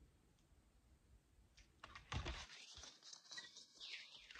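Paper pages of a hardcover picture book rustling and crackling as they are turned by hand. The rustle starts about two seconds in, after near silence.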